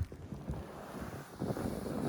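Snow shovel working through heavy, wet, sticky snow: a dull thump at the start, then rough scraping pushes, with some wind noise on the microphone.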